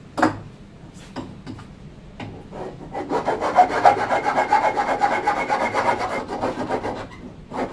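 Hand file scraping on a machined aluminium suspension link in quick, even strokes, filing the too-tight part bigger. A single sharp knock comes at the start, and the filing runs for about four seconds from about three seconds in.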